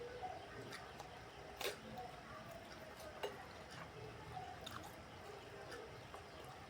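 Close-miked wet chewing and mouth sounds of someone eating rice with vegetables in peanut sauce, faint and squishy, with two sharp clicks, the first about a second and a half in and the louder, the second about three seconds in.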